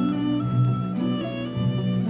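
Background music: strings led by violins playing a melody of held notes that change about every half second.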